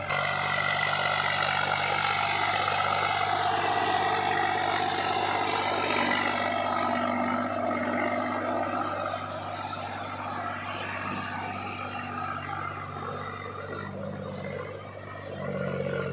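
Swaraj 834 XM tractor's three-cylinder diesel engine running steadily under load, hauling a loaded trolley through mud. It dips briefly near the end, then picks up again.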